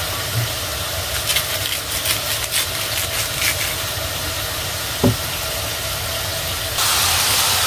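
Knife slicing through crisp iceberg lettuce, a few short crunchy clicks over a steady low hum. About seven seconds in the sound switches abruptly to potato chips deep-frying in hot oil, a louder steady sizzle.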